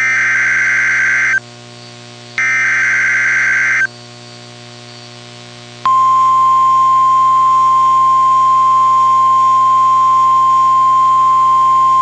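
Emergency Alert System header: two bursts of SAME digital data tones, each a harsh electronic screech about a second and a half long with a short gap between. About six seconds in, the steady single-pitch NOAA Weather Radio warning alarm tone starts and holds.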